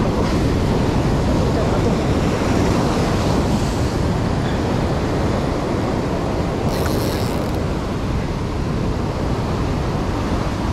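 Rough sea surf breaking and washing over shore rocks, with strong wind buffeting the microphone in a steady low rumble. A short hiss rises over it about seven seconds in.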